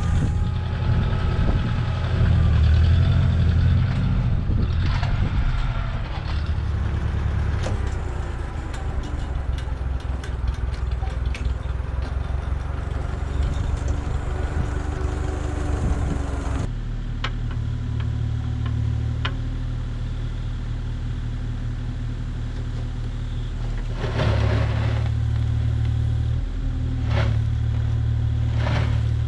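An engine of working machinery running steadily, with a few sharp knocks or clanks in the second half.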